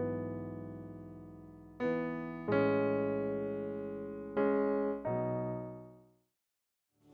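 Electric piano playing slow sustained chords, each struck and left to ring down, changing about four times before fading out to silence near the end.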